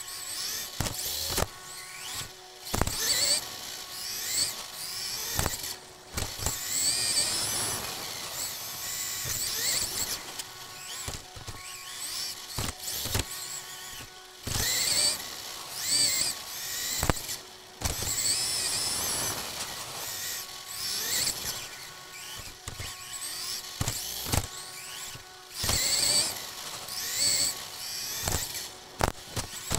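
Onboard sound of an Xray XB2 1/10 2WD electric buggy with a 13.5-turn stock brushless motor being driven hard: a high motor whine that rises and falls again and again with the throttle, over tyre noise on carpet, with many sharp knocks.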